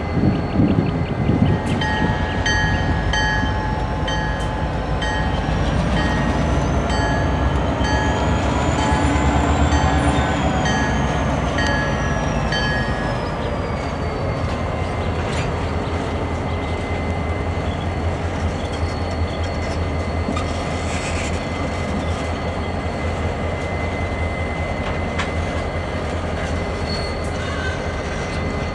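Norfolk Southern and CSX diesel-electric locomotives rolling slowly past, their engines running with a steady low rumble. A whine rises and then falls about a third of the way through, and a high ring repeats at a regular beat through the first half.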